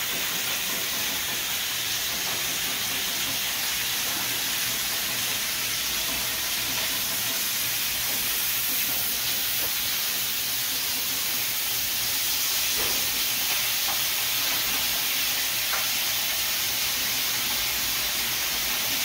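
Chicken pieces sizzling on an indoor electric grill: a steady hiss with a low hum underneath.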